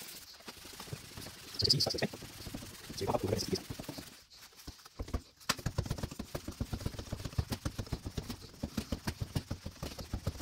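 High-pressure shock pump being worked by hand to pressurise a suspension fork's air chamber toward 160 psi. A few separate strokes come first, then from about five seconds in a fast run of short clicking strokes.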